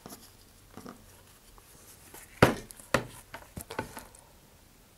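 Rocket body tube being handled and stood on end on the work table: one sharp knock about halfway through, a second knock half a second later, then several lighter taps and gloved-hand rustles.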